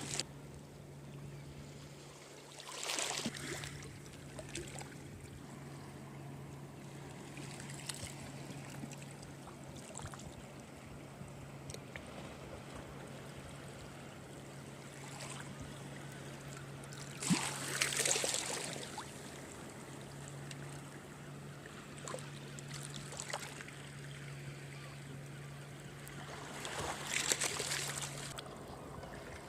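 Sea washing in over rocks and seaweed at the shoreline: rushing swells that rise and fall, the biggest about three seconds in, around eighteen seconds and near the end. A steady low hum runs beneath.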